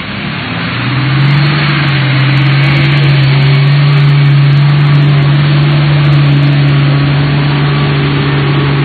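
Diesel engine of a coach bus running under load as it climbs a steep dirt slope. It grows louder over the first second as the bus comes up close, then holds a steady drone.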